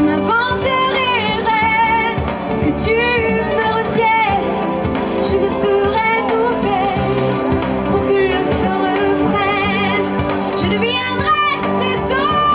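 A woman singing a French pop ballad into a microphone, holding notes with a wide vibrato, over a steady instrumental backing.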